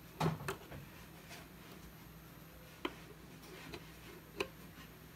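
Small clicks and taps of multimeter test probes being pressed into a UPS's outlet sockets: a few together near the start, then two single sharp clicks later on. A faint steady hum lies underneath.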